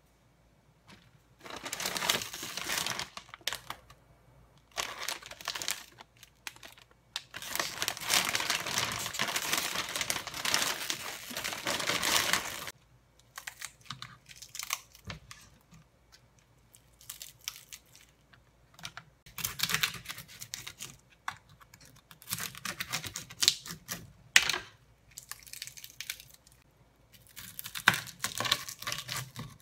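Whole dried pollack (hwangtae) being broken and torn apart by hand, its dry, brittle flesh and skin crackling and tearing in irregular bursts, with a long stretch of steady crackling in the first half. Near the end a kitchen knife cuts into the dried fish.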